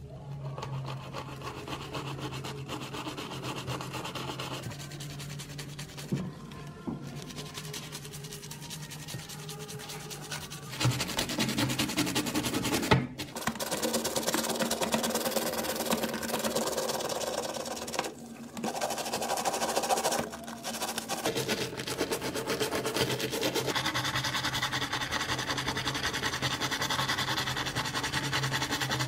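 Stiff-bristled brush scrubbing a soapy diecast model-car part in foamy water: quick scratchy back-and-forth strokes, louder from about eleven seconds in.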